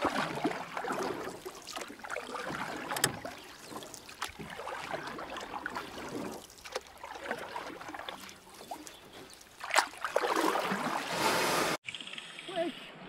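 River water rushing and slapping against an aluminium boat's hull, with a few sharp knocks. Near the end it cuts abruptly to quieter river noise.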